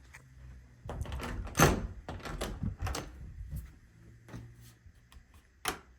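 A quick run of knocks and clattering handling sounds, loudest about a second and a half in, then a single sharp knock near the end.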